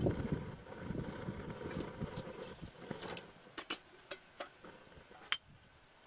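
A thin stream of water poured into an aluminium cooking pot, splashing on the metal bottom, stops about two and a half seconds in. A few sharp ticks follow.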